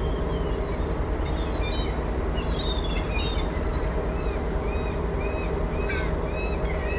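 The ferry's engine drones steadily while gulls call over it. There are clusters of short, sharp squawks in the first half, then a run of repeated arched calls about twice a second.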